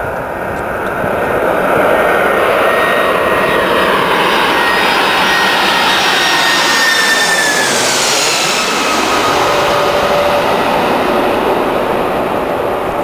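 Boeing 747-400 jet engines passing low overhead on final approach. A loud roar builds about two seconds in, and its whining tones drop in pitch as the plane goes over about eight seconds in, then the roar begins to fade near the end.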